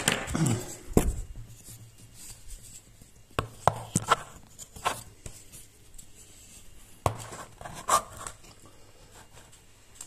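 Handling noise of a camera that has been knocked over and is being picked back up and repositioned: a loud knock at the start, then scattered clicks and knocks.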